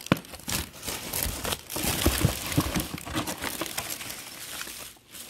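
Bubble wrap and tissue paper crinkling and rustling as hands unwrap an item from a packed box, with a sharp click just after the start.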